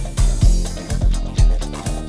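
Background music with a steady, bass-heavy beat, about two beats a second.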